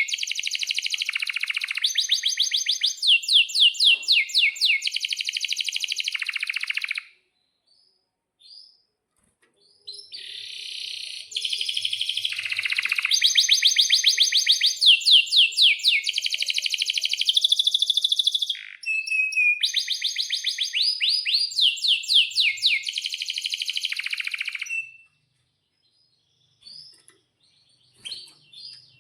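Male domestic canary singing long rolling phrases of rapid repeated high trills, the note type changing every second or two. The song stops about 7 s in, resumes about 3 s later for a second long bout, and breaks off about 25 s in, leaving a few faint chirps.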